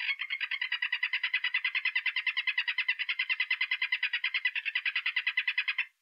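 Golden poison frog (Phyllobates terribilis) calling: one long, rapid trill of evenly spaced chirps that stops abruptly near the end, after almost six seconds.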